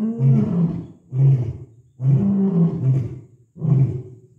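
Male lion roaring: a run of short, deep roars repeated about once a second.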